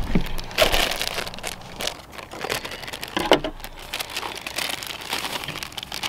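Plastic inner bag of a boxed cake mix crinkling as it is handled and opened, in irregular rustling bursts.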